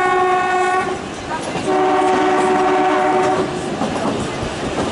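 Narrow-gauge train's locomotive horn sounding twice: one blast ending about a second in, then a second blast of nearly two seconds. Underneath runs the steady rumble and clatter of the moving train.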